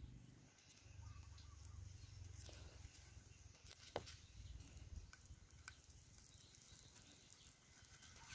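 Near silence: faint outdoor ambience, with a low rumble on the microphone in the first few seconds and a few small clicks, the clearest about four seconds in.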